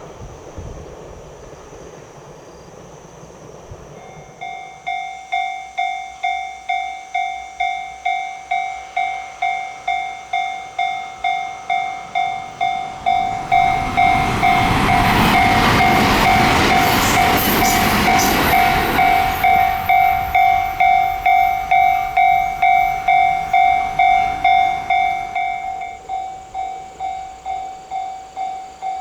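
A Japanese level-crossing warning bell starts about four seconds in, dinging steadily about twice a second. A train rumbles through the crossing for several seconds around the middle, and that is the loudest part. The bell keeps ringing after the train has gone.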